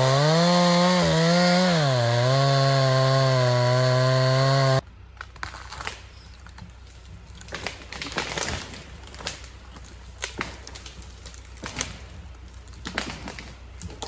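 Two-stroke chainsaw running under load while cutting wood, its engine pitch sagging and rising as the chain bites. It cuts off abruptly about five seconds in, leaving faint background with scattered light clicks and rustles.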